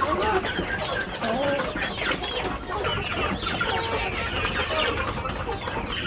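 A flock of desi hens clucking, many short overlapping calls in a steady chorus.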